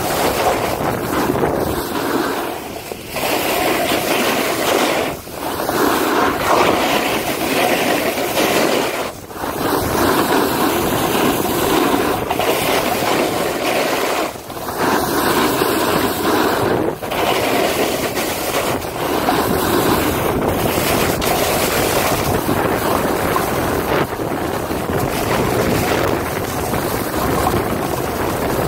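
Steady scraping hiss of sliding downhill over snow, mixed with wind rushing over the phone's microphone. It drops away briefly about six times.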